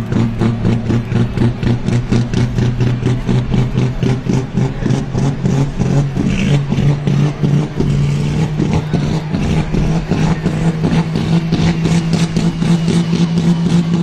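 A turbocharged super stock diesel pulling truck engine running with a pulsing lope of about two to three beats a second. About halfway through, its note rises and then holds at the higher speed.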